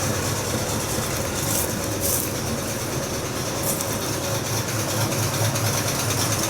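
Classic Pontiac engine idling steadily after a cold start, with a rapid ticking clatter from a bad valve lifter.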